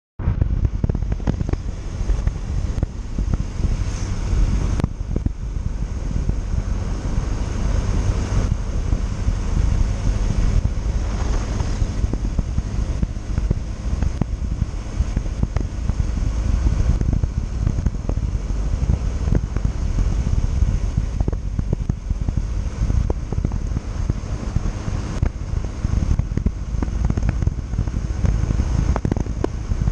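Wind buffeting the microphone on a moving motorcycle, a Yamaha Factor 150, with its engine running underneath; a steady rushing din.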